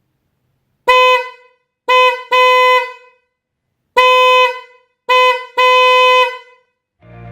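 Bosch EC6 Compact Plus fanfare car horn sounding in six blasts at one steady, bright pitch: a short honk, a short and a longer honk close together, one longer honk, then another short and longer pair.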